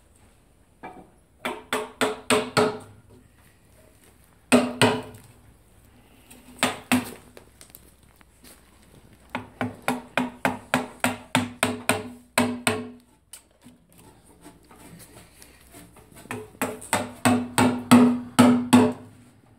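Steel hammer striking the hooped handle of a Japanese mortise chisel, cutting a mortise into a timber beam. The strikes come in quick runs of about three a second, each with a short metallic ring, and pause between runs.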